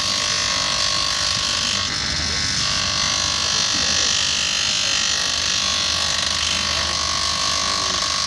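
Electric bench grinder running steadily while a shoe's sole edge is pressed against its abrasive sanding wheel, giving a continuous motor whine with a grinding hiss. The hiss grows brighter for a couple of seconds in the middle as the shoe is pressed on.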